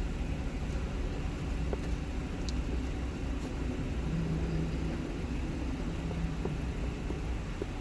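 Steady low vehicle rumble heard from inside a car's cabin, with a faint hum joining it for a couple of seconds about halfway through and a few faint clicks.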